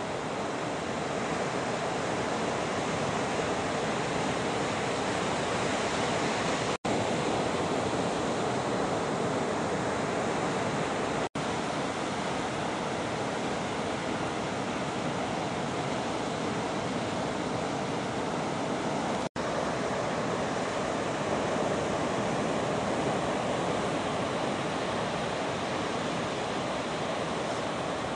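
Ocean surf breaking and washing on a beach, a steady rushing hiss with no let-up. It cuts out to near silence three times for a split second.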